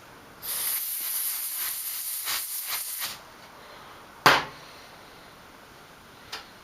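Canned compressed air blowing a hiss of about two and a half seconds onto a small switch spring to clear dirt from it. About a second later comes one sharp knock, the loudest sound, and a faint click near the end.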